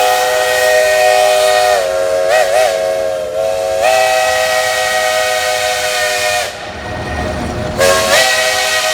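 Steam locomotive chime whistle sounding a chord of several tones in long blasts. The pitch wavers down and up about two seconds in and the whistle pauses briefly. A steady blast follows, then a few seconds of steam hiss, and another blast starts near the end.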